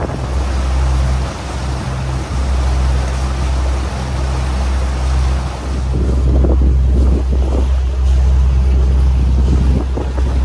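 Tour boat's engine running with a steady low drone, under the rush of water from the wake and wind buffeting the microphone, which gusts more strongly from about six seconds in.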